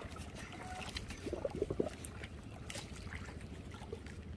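Sea water lapping and sloshing against the hull of a small rocking fishing boat, over a steady low rumble, with a few faint clicks and short squeaks about a second and a half in.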